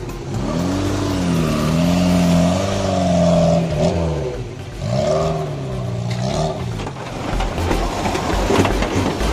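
Suzuki Jimny 4x4 engine revving as it pulls away on dirt, the pitch rising, holding, dipping, then rising and falling again. In the last couple of seconds this gives way to a rougher, noisier engine rumble.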